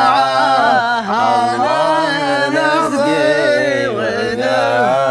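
Slow Arabic song with long, wavering sung notes over a steady low accompaniment: a sad song about moments of farewell.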